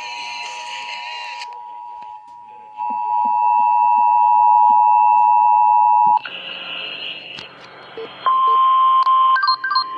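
Emergency Alert System two-tone attention signal: a steady, piercing pair of tones just under 1 kHz, louder from about three seconds in, cutting off suddenly about six seconds in. Near the end a different alert tone starts, a steady tone with short repeating beeps.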